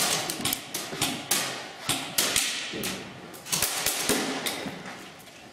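Airsoft gunfire: irregular sharp cracks and knocks, some in quick runs, echoing in a large hall and thinning out near the end.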